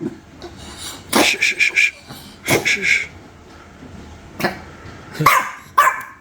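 Dogs barking in short, sharp barks reacting to a noise in the house: a quick run of about four barks about a second in, two more shortly after, then single barks spaced out near the end.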